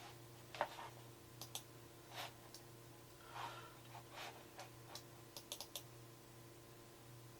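Faint, scattered clicks of a computer keyboard and mouse, some single and some in quick runs of two or three, over a steady low electrical hum.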